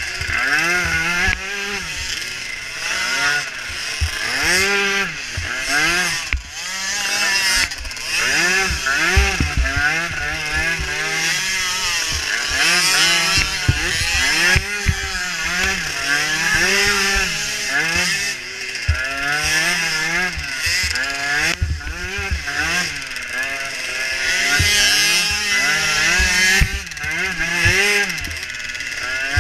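Small micro ATV engines racing, the revs rising and falling over and over as the throttle is worked, in a high, buzzy tone.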